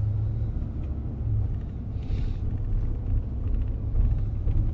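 Steady low rumble of engine and road noise from a vehicle towing a travel trailer while driving along.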